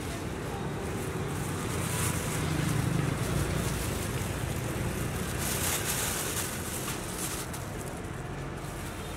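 Steady street noise: a low traffic rumble mixed with hiss, swelling a little between about two and seven seconds in.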